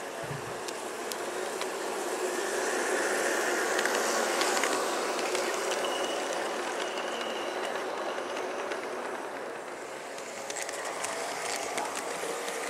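LGB G-scale garden-railway model trains running past on the track, their motors and wheels making a steady whirring that grows loudest about four seconds in, with a faint whine and light clicks over the rails.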